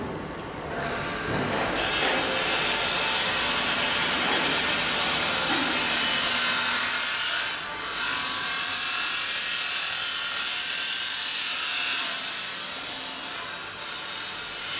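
Laminating film being pulled off its roll on a flatbed laminator, a rough, steady rasping hiss. It dips briefly about eight seconds in and eases off after twelve.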